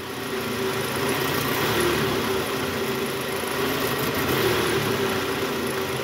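Toyota Camry XV40's 2AZ-FE four-cylinder engine running under throttle with the AC on and the automatic in reverse, with no balancer-shaft rattle (the "krrr") now that a new balancer shaft is fitted. The sound is steady, rising a little in the first second or two.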